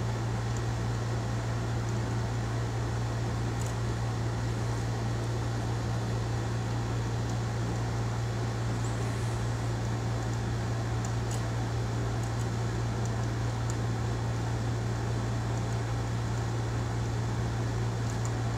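A steady low hum of running machinery, unchanging throughout, with a few faint light clicks on top.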